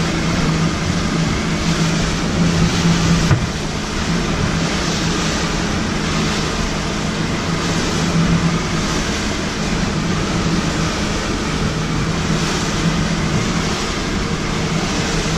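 Boat engine running steadily under way, a constant low hum over a rush of wind and water. The level steps down slightly about three seconds in.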